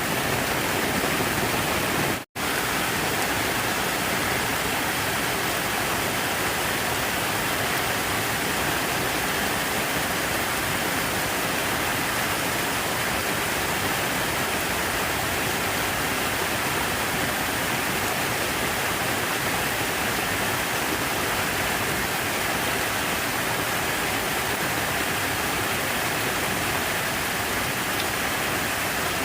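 Steady rushing of falling water, an even hiss with no change. The sound cuts out completely for an instant a little over two seconds in.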